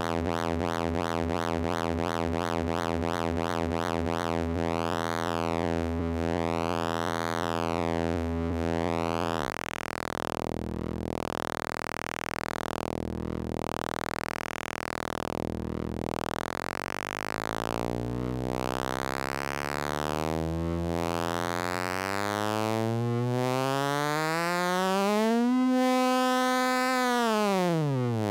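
Handmade 9-volt CMOS square-wave synthesizer holding one buzzy drone while its automated pulse-width modulation sweeps the tone colour in a repeating cycle. About ten seconds in the tone turns thinner and hollower. In the last third the pitch glides slowly up, holds briefly, then drops near the end.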